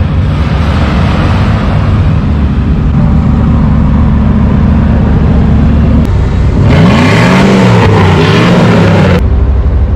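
Off-road vehicle's engine running loud and close, its revs rising and falling several times in the last few seconds, with a rushing noise over it.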